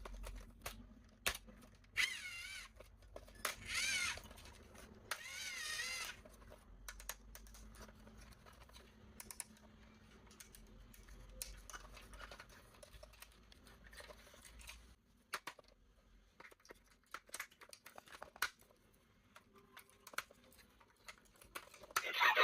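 Small clicks, taps and rustles of plastic toy parts being handled and fitted together. There are three short warbling high-pitched sounds about two, four and five seconds in.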